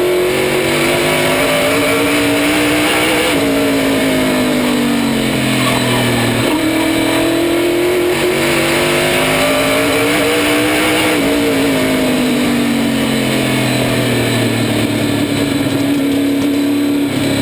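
Race car engine at speed, heard close from a camera mounted by the left-front suspension. Its pitch climbs under throttle and drops off as it lifts, in long sweeps that come twice.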